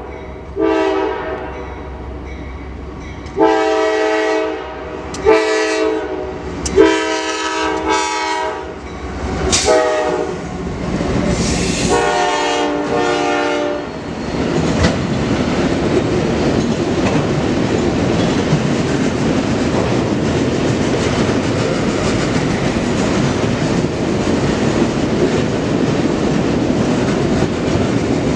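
Freight locomotive's air horn sounding a series of long and short blasts for a grade crossing through the first half. The horn then gives way to the steady rumble and clatter of autorack freight cars rolling past on the rails.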